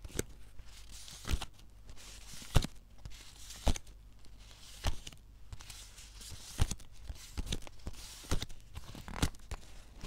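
Stiff paper cut-outs being handled and flipped through, crackling and rustling, with a sharp crisp snap about once a second as each card is turned or set against the stack.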